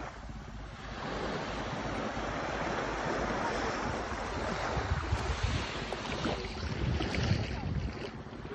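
Small waves washing up onto a sandy beach and sliding back, a steady surf hiss, with wind buffeting the microphone in low rumbles about halfway through.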